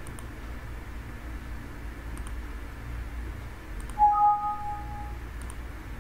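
Windows system alert chime, a two-note ding that fades over about a second, sounding about four seconds in as a SolidWorks warning dialog opens. A few faint clicks come before it.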